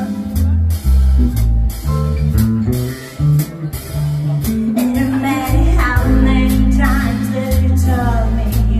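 Live band playing a rock ballad: bass and keyboard with regular cymbal hits, joined by a woman's singing voice about halfway through.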